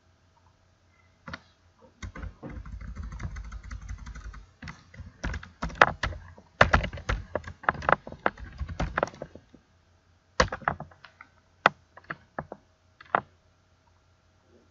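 Typing a password on a computer keyboard: irregular runs of key clicks, densest and loudest midway, thinning to a few separate key presses near the end.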